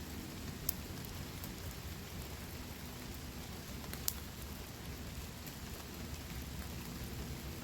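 Steady rain falling, with two sharp ticks, one near the start and a louder one about halfway through.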